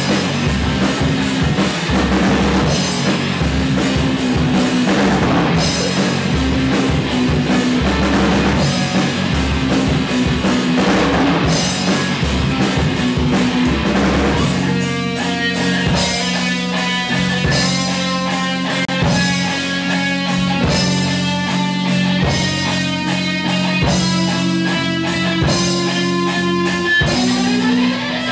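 Rock band playing live with electric guitars, bass guitar and a Yamaha drum kit. The drums hit hard and steadily for the first half. About halfway the drums thin out and the guitars hold sustained chords, and near the end a note slides upward.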